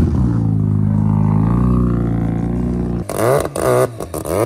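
Mazda rotary engine idling with a steady low hum that sags slightly in pitch, cut off suddenly about three seconds in, followed by brief voices.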